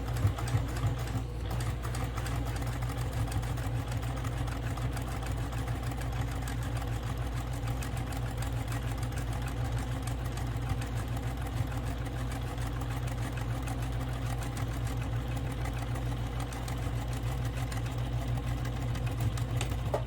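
Electric sewing machine running steadily, stitching along a folded fabric strap, its needle ticking fast and even.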